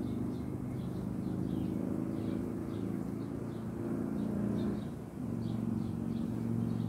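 Honey bees buzzing around a frame lifted from an open hive: a steady low hum of several pitches that shifts slightly about five seconds in. Faint short high chirps repeat a few times a second behind it.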